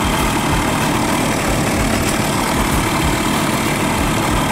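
Wind buffeting the microphone: a loud, steady rushing noise with an uneven low rumble and no engine tone in it.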